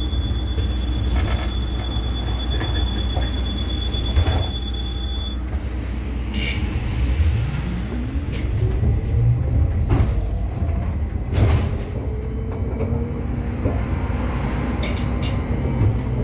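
Škoda 30Tr SOR trolleybus heard from inside the cabin as it pulls away: two steady high tones stop about five seconds in, then the electric traction drive whines up in pitch as it accelerates over the low rumble of the moving bus, with a couple of sharp knocks from the body.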